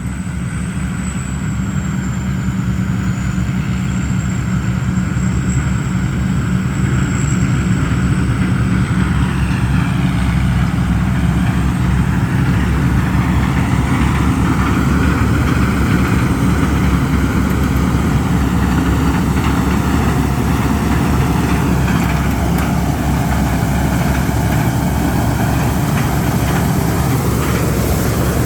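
Combine harvester engine and machinery running steadily under load. A thin high whine sits over it for the first several seconds, and the pitch rises near the end.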